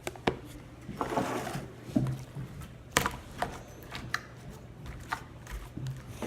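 Scattered clicks and knocks of small objects being handled, with a short rustle about a second in and a sharper knock about three seconds in, over a steady low hum.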